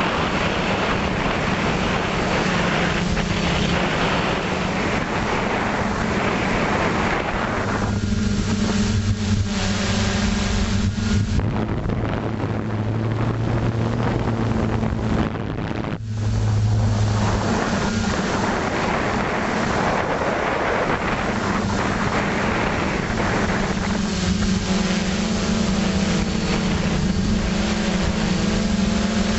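FPV model aircraft's motors and propellers heard from its onboard camera: a steady buzzing hum with wind rushing over the microphone. The wind rush drops away for a few seconds near the middle, leaving the motor hum on its own.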